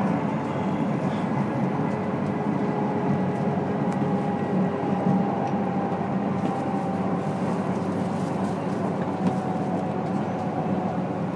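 Steady running noise inside a Tohoku Shinkansen car: an even rumble with a faint whine over it.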